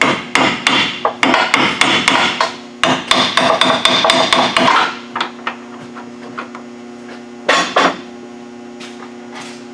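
Hand hammer striking the steel upper control arm mount of the truck's front suspension: a quick run of blows for about five seconds, then a few single taps.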